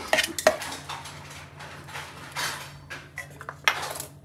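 Stainless-steel kitchenware clinking and scraping as wet spice paste is scraped out of a steel mixer-grinder jar and into a steel bowl. There are several sharp knocks, around the start, about half a second in and near the end, with scraping in between.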